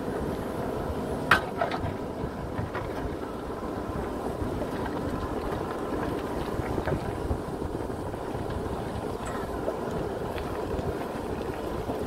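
JCB backhoe loader's diesel engine running steadily under load as the rear bucket digs and scrapes rocky soil. There is one sharp knock about a second in and a few lighter clicks later.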